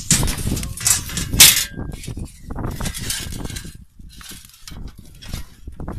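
Thin metal sheets handled and laid over a tandoor's opening as a cover: irregular clinking and scraping, loudest in the first two seconds.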